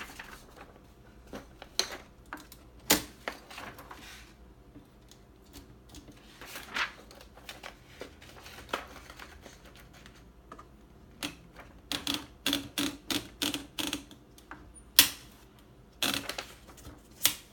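1953 Gossen Tippa B ultraportable typewriter's mechanism clicking and clacking as it is handled. There are scattered single clicks, then a quick even run of about four or five clicks a second two thirds of the way in, and a few loud clacks near the end.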